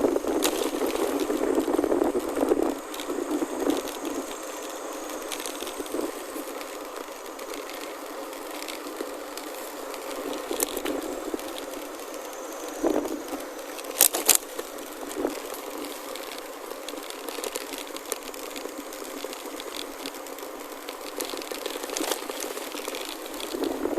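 Chromoly gravel bike rolling over a gravel forest road: a steady noise of tyres on gravel and the bike rattling, louder for the first few seconds, with scattered clicks and a few sharp knocks a little past halfway.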